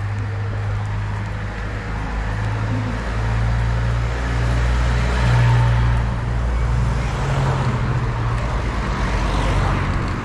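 Road traffic: a motor vehicle's engine running with a low, steady hum, and tyre noise of passing cars growing in the second half.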